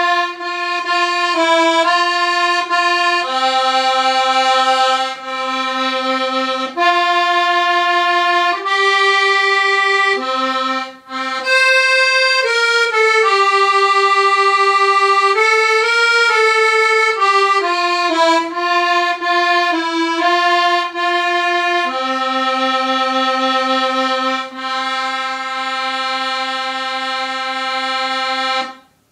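Piano accordion playing a tune of long held notes and chords, with a quicker run of shorter notes in the middle. It breaks off briefly about eleven seconds in and stops just before the end.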